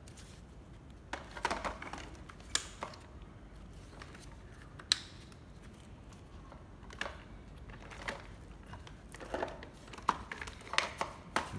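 Scattered clicks, knocks and rustles of a plastic-bodied cordless hammer drill being handled, with a sharp click about five seconds in and a quick run of clicks near the end.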